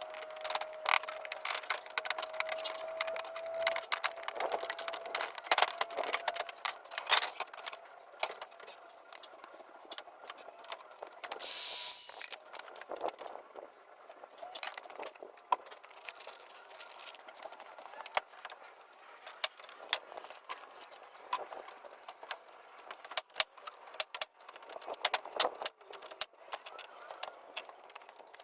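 Irregular clicks, knocks and rattles of hand work with tools, with a short hiss about twelve seconds in.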